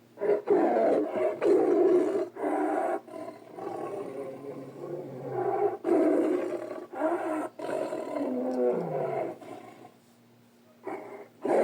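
Tiger growls and roars used as sound effects for an albino Bengal tiger: a string of rough, loud roars broken by short pauses, a lull near the end, then another roar starting.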